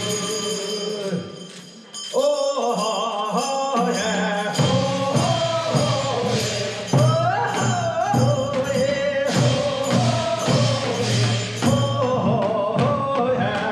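Korean funeral bier song (sangyeo sori) sung live: a lead singer's solo line starts about two seconds in, then from about four seconds the group of pallbearers sings along over a steady beat of drum strokes.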